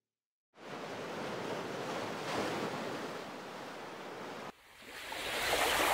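Sea surf washing onto a beach. An even wash of waves starts about half a second in, breaks off briefly after four seconds, then a louder wave swells up near the end.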